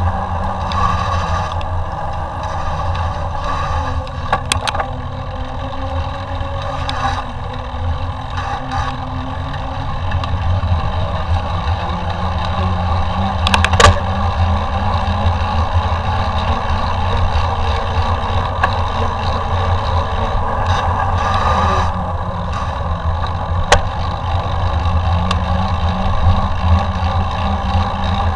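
Mountain bike riding over a trail: a steady rolling rumble with wind buffeting the microphone, and a few sharp knocks from bumps, the loudest about 14 seconds in.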